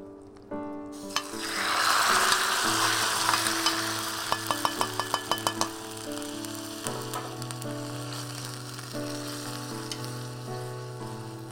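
Hot oil tempering sizzling in a small pan and going into a pot of curry. It starts suddenly about a second in, is loudest soon after, and slowly dies down. Midway there is a quick run of about ten light clicks from the ladle against the pan.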